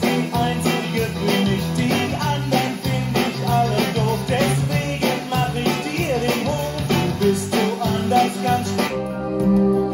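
A song with singing, guitar and a steady beat played through a Fisher stereo system's speakers; about nine seconds in it cuts abruptly to different music of plucked strings with less treble, as the source or setting on the system is switched.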